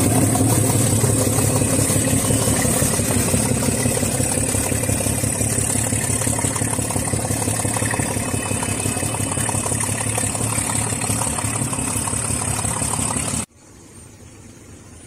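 Diesel locomotive engine running steadily at close range, with a rapid even beat and a high steady whine above it. Near the end it drops suddenly to a much quieter engine sound.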